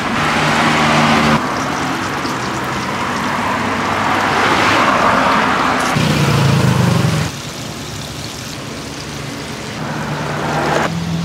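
Flour-coated chicken deep-frying in a pot of hot oil, sizzling and bubbling steadily. Underneath is a motor vehicle's engine hum, which swells about six seconds in.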